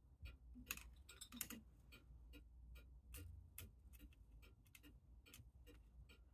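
Faint, even clicking, about four or five clicks a second, from the ratchet of a hand-cranked mainspring winder being turned, with a few louder metal knocks as the tool is handled.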